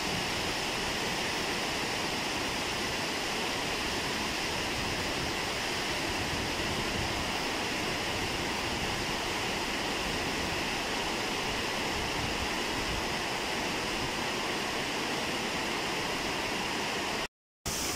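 Water released through a dam's gates rushing and churning white over the spillway: a steady, even rushing noise. It cuts out for a moment near the end.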